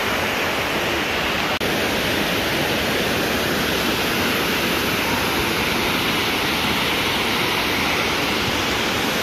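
Dunn's River Falls: water rushing steadily over rock ledges and into shallow pools. There is a momentary dropout about a second and a half in.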